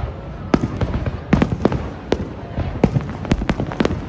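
Aerial fireworks bursting: an irregular run of sharp bangs and crackles, about a dozen in four seconds, several coming in quick clusters.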